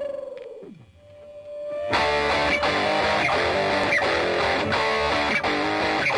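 Guitar-led rock music. An opening note slides down in pitch and fades, then about two seconds in the full band comes in with a steady beat.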